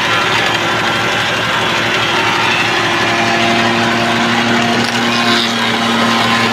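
Taiwanese AN51 woodworking planer running steadily under power, a machine hum with several steady tones over a fast rough clatter.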